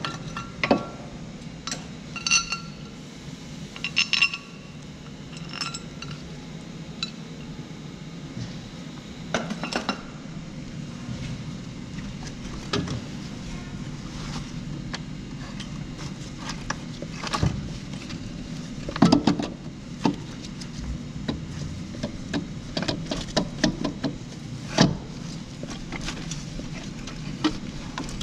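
Metal hand tools and parts clinking and knocking irregularly, some clinks ringing briefly in the first few seconds, over a steady low hum.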